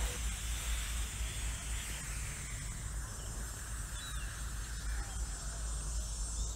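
Outdoor ambience with a steady low rumble and faint high hiss, and a few faint bird chirps, the clearest about four seconds in and near the end.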